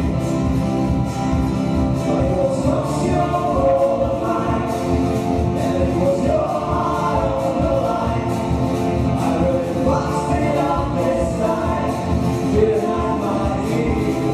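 Live acoustic pop band playing a song: a female and a male voice singing together over acoustic guitar, violin, double bass and drums.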